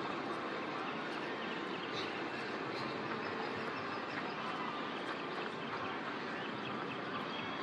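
Steady outdoor background noise with faint, indistinct voices of people in the distance.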